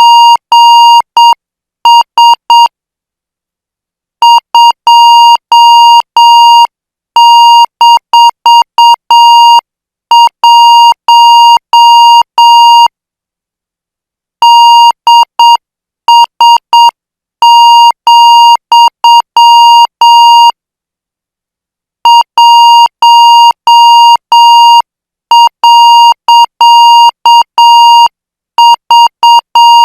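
Morse code practice tone keyed at about 8 words per minute: one steady high beep switched on and off in dots and dashes, sent as five-character groups with short pauses between groups.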